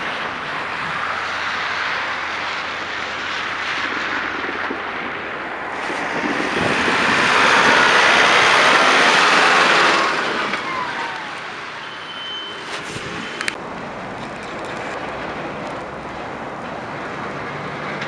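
Street traffic on slushy roads, with a compact tractor pushing snow with its front plow blade as it passes close. Its noise swells loudly for about four seconds in the middle, then fades.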